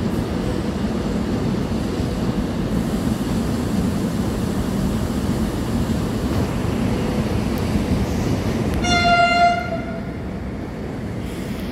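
Seoul Metro Line 1 rheostat-control electric train running past on the track, a steady rumble. About nine seconds in, a train horn gives one short single-pitched blast.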